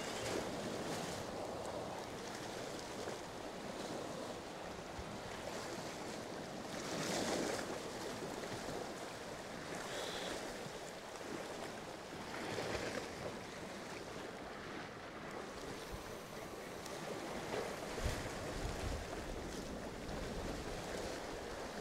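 Sea surf washing against rocks, a steady wash that swells louder now and then as waves come in. Wind rumbles on the microphone a few times near the end.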